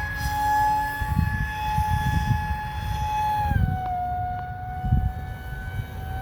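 Electric motor and pusher propeller of an RC model jet whining steadily in flight, the pitch stepping down about three and a half seconds in as the power changes. Wind buffets the microphone underneath.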